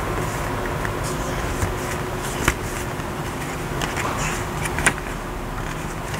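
Tarot cards being handled in a flip-through: soft card rustles and a few sharp clicks as cards are moved and set down, two louder ones about two and a half and five seconds in, over a steady background hum.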